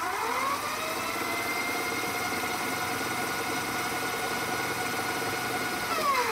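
Fast-forward sound effect laid over sped-up footage: a steady motor-like hum that climbs in pitch over the first second, holds level, then drops away near the end.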